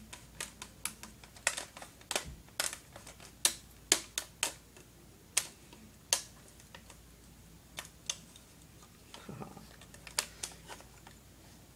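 Irregular sharp clicks and taps of hard plastic parts of a Robot 2001 toy robot being handled and fitted together. They come thick for the first six seconds or so, then thin out, with a soft low thump about nine seconds in.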